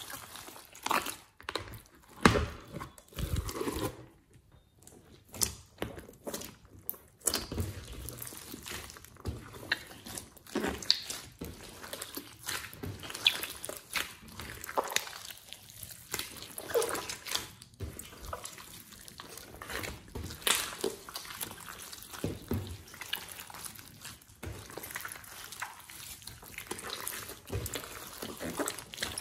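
A large mass of store-bought slime mixed with clay, squeezed, stretched and folded by hand: irregular wet squelches and sticky clicks, thinning out for a few seconds about four seconds in.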